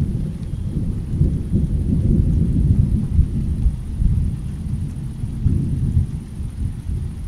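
Steady rain falling on wet pavement, with a low rolling rumble of thunder that swells a second or so in and eases off near the end.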